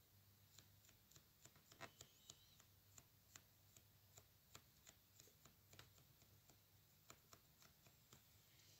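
Near silence with faint, irregular light taps, about three a second, as a cosmetic sponge is dabbed onto a painted fingernail, over a low steady hum.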